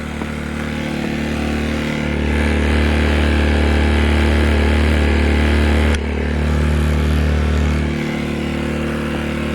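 Sportsman 1000i inverter generator's small engine running steadily in run mode, economy mode off. It gets louder about two seconds in, then drops back abruptly about six seconds in.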